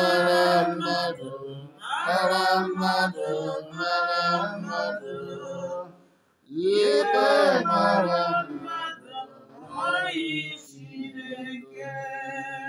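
Unaccompanied voices singing a chant in drawn-out phrases, with a brief pause about six seconds in.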